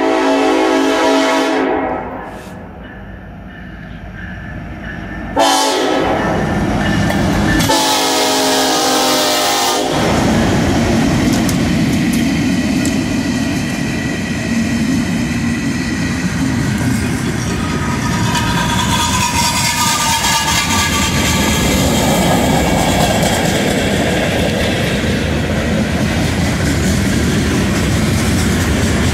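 Norfolk Southern diesel freight locomotive's air horn sounds three blasts, one at the start and two back to back a few seconds later. The locomotives then pass close by, followed by freight cars rolling past in a steady, loud rumble of wheels on rail.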